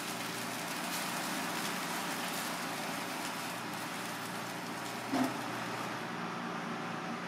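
Cream sauce simmering in a frying pan over a gas flame, a steady sizzling hiss. There is a brief pitched blip about five seconds in.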